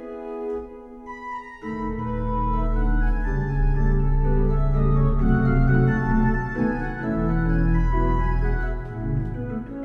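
Organ playing a ragtime piece. Lighter chords at first, then about two seconds in a full, loud passage enters over deep sustained bass notes, thinning out near the end.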